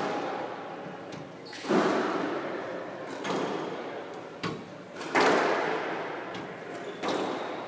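Squash rally: the ball cracking off rackets and the court walls about six times, each hit ringing with a long echo in the enclosed court, the loudest about two and five seconds in.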